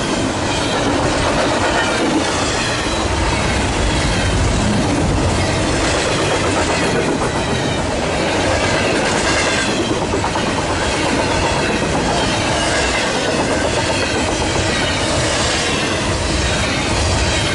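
Norfolk Southern double-stack intermodal train's container cars rolling past close by: a loud, steady run of steel wheels on the rails.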